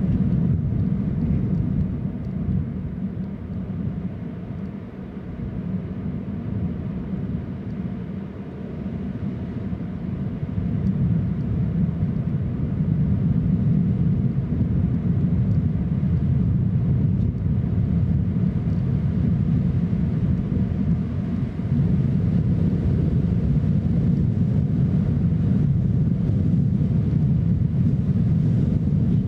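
Steady low rumble of wind buffeting an outdoor nest-camera microphone. It eases for a few seconds early on, then grows stronger and stays steady.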